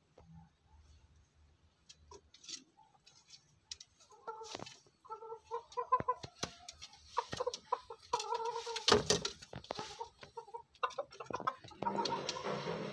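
Chickens, a bantam-cross rooster and a red junglefowl hen, clucking in short repeated notes from about four seconds in. Bursts of noise come around the middle and near the end.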